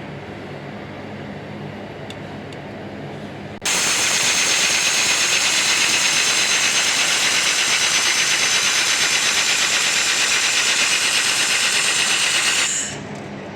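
Steady hum of a handheld laser welder standing ready, then about four seconds in a loud, even hiss with a fine rapid flutter starts suddenly as a 1500 W dual-wobble laser weld is run on 2.5 mm carbon steel; it holds for about nine seconds and drops away near the end.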